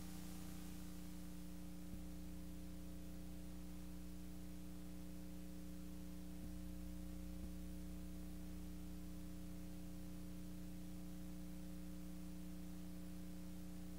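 Steady low electrical hum with faint hiss from the old videotape transfer, broken by a few faint ticks.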